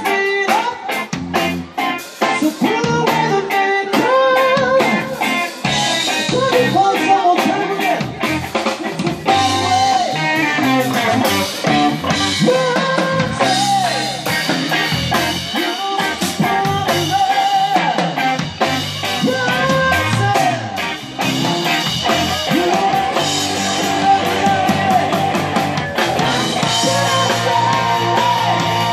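Live rock band playing: electric guitars and a drum kit driving a steady beat, with a voice singing over them.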